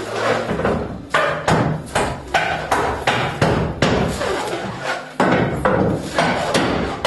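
Repeated hammer blows, uneven and roughly two to three a second, as nailed wooden building parts are knocked apart by hand.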